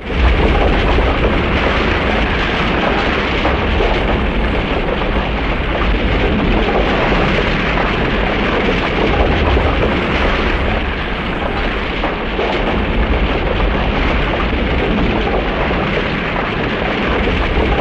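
Tokusatsu monster-fight sound effect: a continuous, loud rumbling roar of noise with heavy low end, held steady for about eighteen seconds, starting and stopping abruptly.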